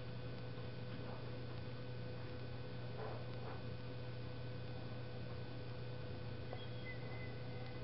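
Steady low electrical hum, with a few faint scratches of a pencil on paper about three seconds in.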